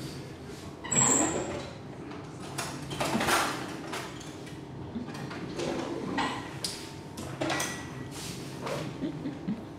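A kitchen drawer sliding open and shut, with several short clatters and scrapes of cutlery as a spoon is taken out, over the steady hum of a running dishwasher.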